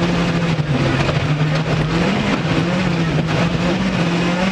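Rally car engine running hard at high revs, its pitch holding fairly steady with small shifts up and down.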